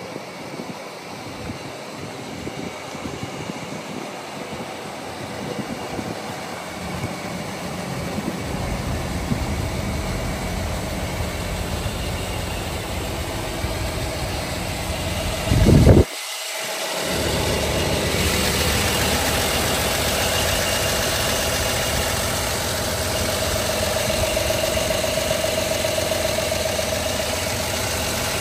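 1949 GMC 250 truck's inline six-cylinder engine idling, growing louder over the first several seconds. About halfway through there is a brief loud burst and a short gap, after which the idle carries on steadily.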